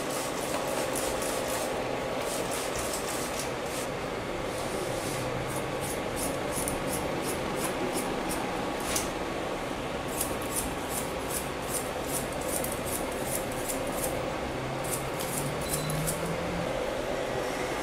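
Hairdressing scissors snipping through wet hair in quick runs of sharp cuts, several a second, with short pauses between runs, over a steady background hiss.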